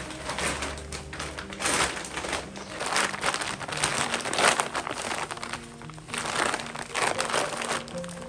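A fabric shopping tote rustling and crinkling in several bursts as it is folded and pressed flat by hand, over steady background music.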